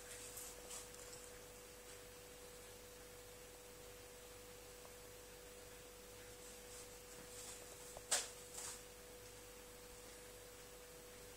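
Quiet room with a steady, faint, high electrical whine. A few soft ticks, with one sharper click about eight seconds in and a smaller one just after.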